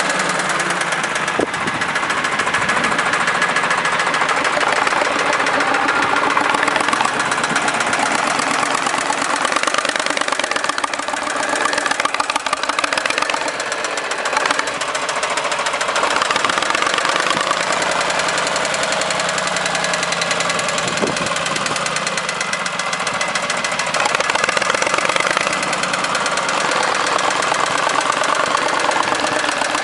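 Backhoe loader's diesel engine running steadily, with a fast even firing pulse and small swells in level.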